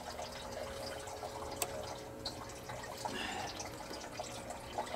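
Faint scattered clicks and taps of a plastic quick-disconnect tool being worked into a Ford fuel line quick-connect fitting while the line is tugged, with one sharper click about one and a half seconds in.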